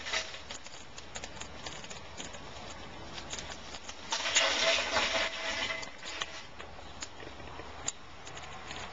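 Lump charcoal clattering and rattling as lit coals from a chimney starter are dumped onto unlit charcoal in a smoker's charcoal ring. The loudest clatter comes about four seconds in and lasts a second or so, with scattered light clicks around it.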